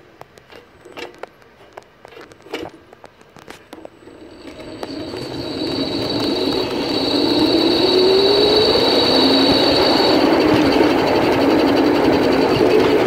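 Home-built electric go-kart pulling away after a few quiet seconds of clicks and knocks. About four seconds in, its electric drive starts up with a high whine, and the running noise builds into a loud steady rush. A lower motor whine rises in pitch as the kart gathers speed.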